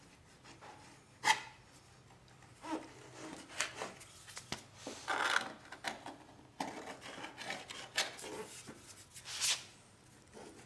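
Hand scraper dragged in short, irregular strokes across a 1991 Club Car DS golf cart's body panel, lifting paint softened by chemical paint remover.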